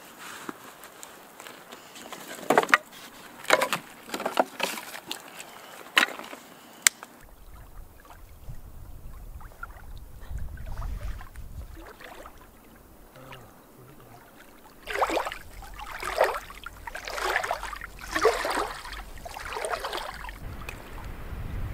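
A run of sharp clicks and snaps over the first several seconds, then a low rumble, then water splashing in five or six short bursts as a trout is rinsed in the lake at the shoreline.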